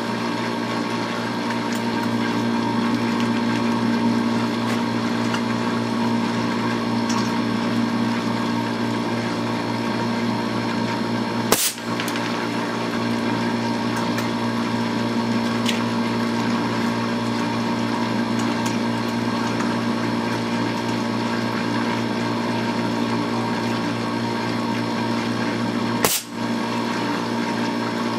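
Two shots from a homemade .25-calibre BB gun powered by shop air at about 120 psi, sharp pops about 12 seconds in and again near the end. A steady machine hum runs underneath.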